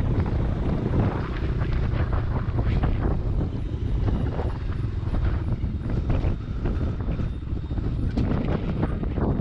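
A 125 cc motorcycle running on the move, its engine a steady rumble under wind noise buffeting the microphone.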